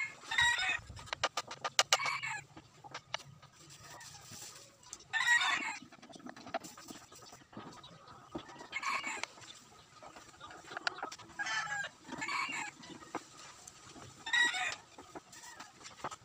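Chickens clucking, with short separate calls every second or two. A quick run of clicks comes about a second in.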